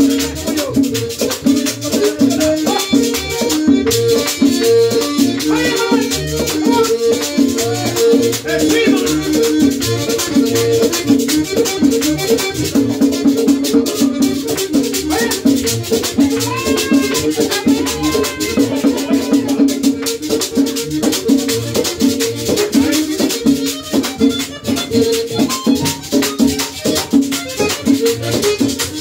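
Mangulina dance music playing loudly: a fast, even shaken-percussion rhythm over steady held instrument notes.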